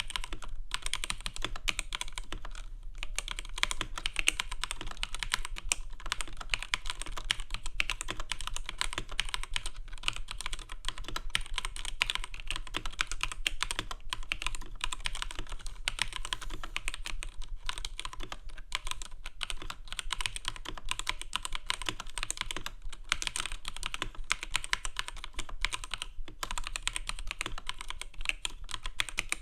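Computer keyboard being typed on fast and continuously: a dense run of key clicks with a few brief pauses.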